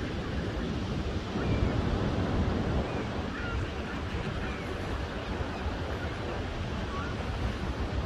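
Ocean surf breaking steadily on a sandy beach, swelling a little about a second in. A low wind rumble on the microphone runs under it.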